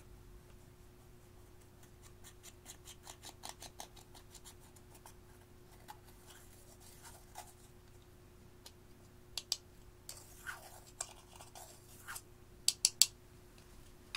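Thin metal tool scraping and breaking up pressed eyeshadow in a plastic compact, a run of quick scratchy clicks and crumbling. A few sharp, louder taps come near the end.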